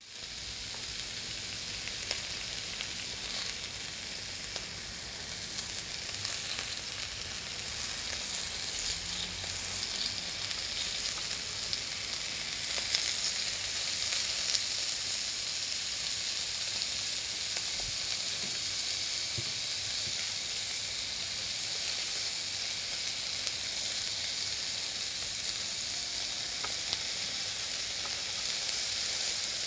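Thin pork slices sizzling steadily on the hot ribbed plate of an electric grill, the fat frying in an even hiss that grows a little stronger over the first several seconds.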